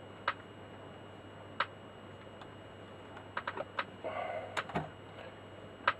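Scattered small clicks and taps, with a brief scrape about four seconds in, as a small screw is fiddled by hand against a fitting that has hardly any thread showing for it to catch on.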